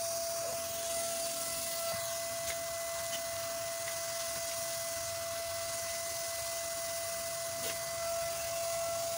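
Paint spray gun spraying varnish onto wooden window frames: a steady hiss with a constant high whine running under it.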